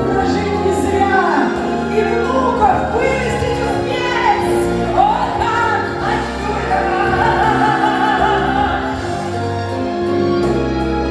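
Female voice singing a pop ballad over a backing track with keyboard chords, in wordless melodic runs, then one long held note with vibrato from about six to nine seconds in.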